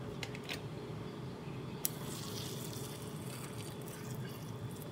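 Hot water being poured into a bowl of dry bean vermicelli to soak it. A few light clicks come first, then a steady hiss of pouring water starts about two seconds in.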